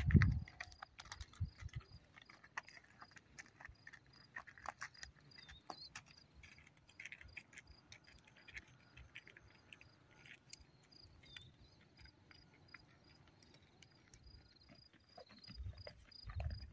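A loud thud at the start, then faint scattered clicks and knocks of a pack donkey's hooves and footsteps on stony ground, over a high chirp repeating about twice a second.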